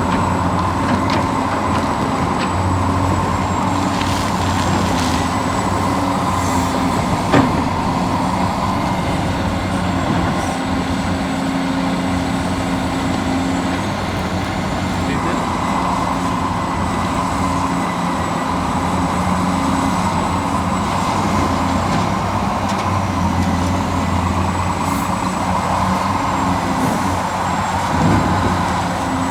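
Radio-controlled scale excavator and dump truck working: a steady mechanical hum with a high whine that changes as the machines start and stop moving, with a sharp knock about seven seconds in and a softer one near the end.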